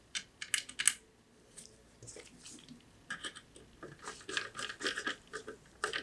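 Small Torx screws being fitted into a metal SSD adapter bracket, set by hand and turned with a precision screwdriver. A few sharp clicks come in the first second, then a run of quick ticks and scrapes from about three to five seconds in.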